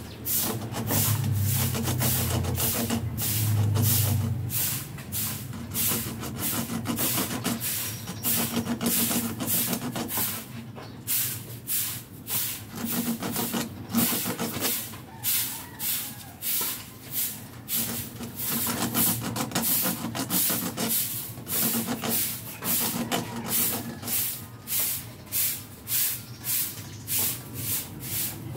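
Rhythmic scraping strokes, about two a second, with a low hum during the first few seconds.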